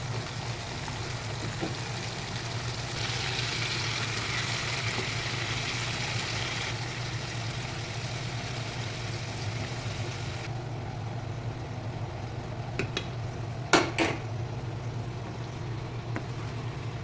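Food sizzling in a cooking pan while being stirred, the hiss cutting off suddenly about ten seconds in. A few sharp metal knocks of a utensil against the pan follow, the loudest near the end, over a steady low hum.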